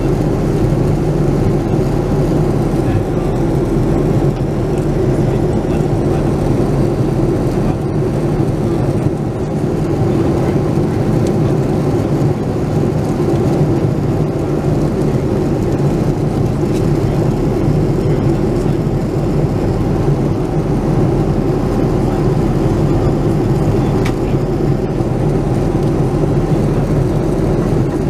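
Steady cabin noise inside a Boeing 787-9 Dreamliner airliner in flight: an even, unbroken drone of engines and rushing air, low and full.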